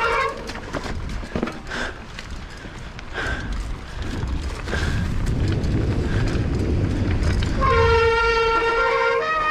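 A loud horn sounding in long, steady, many-toned blasts: one ends shortly after the start and another sounds for about a second and a half near the end, with a low rumble in between.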